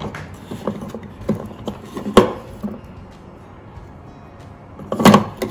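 Plastic clicks and knocks as a food processor's chopping blade is handled and seated onto the drive spindle in its plastic bowl, with one sharp knock about two seconds in and a cluster of louder clicks near the end.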